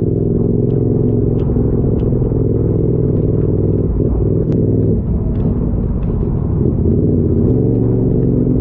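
Motorcycle engine running at a steady road speed, a low droning hum that wavers briefly about halfway through.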